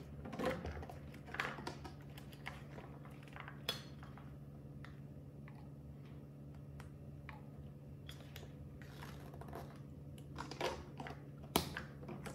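A spoon scooping and tapping in a tin of powdered milk formula while plastic bottles are handled: scattered small clicks, scrapes and taps, with a couple of sharper knocks near the end. A steady low hum runs underneath.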